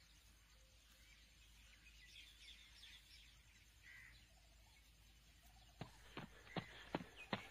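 Faint bird calls, then from about six seconds in, running footsteps on an asphalt road, nearly three strides a second, growing louder as the runner comes toward the microphone.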